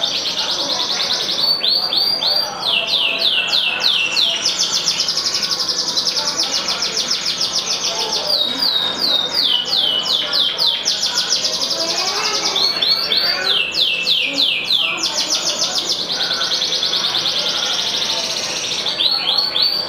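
Yellow domestic canary singing a long, unbroken song: fast buzzy trills alternating with runs of repeated down-slurred notes.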